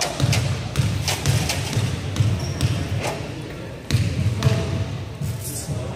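Basketball dribbled on a hardwood gym floor before a free throw, a bounce about every half second.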